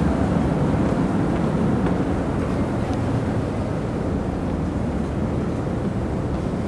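Steady low rumble of the car ferry Kokudo Maru's engines, with wind on the microphone.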